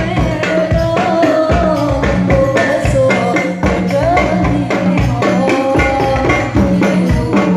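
Women singing sholawat, an Islamic devotional song, into microphones over a steady percussion beat.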